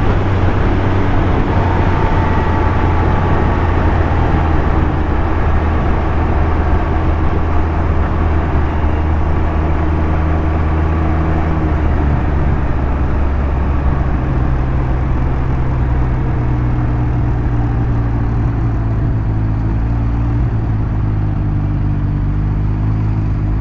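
Can-Am Ryker three-wheeler's engine running on the move, heard from on board. It is a steady low drone over road and wind rush, and its pitch shifts about halfway through as the speed changes.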